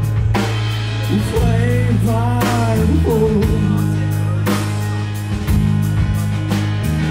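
Live rock band playing with electric guitars and a drum kit over held low notes. A melodic line slides up and down in pitch over the top between about one and three seconds in.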